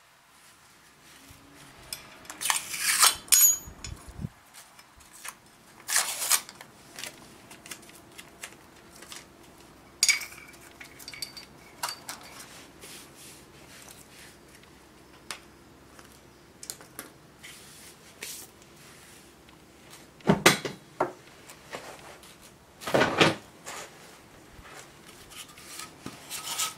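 Hand tools and small metal parts being handled on a concrete floor: scattered clinks, scrapes and clatters, with louder knocks about a third of the way in and twice near the end.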